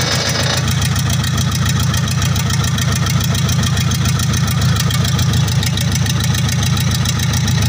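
Diesel engine idling steadily, with an even pulse of firing strokes.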